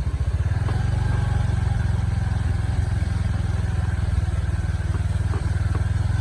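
Engine running steadily under low load, a fast, even low throb.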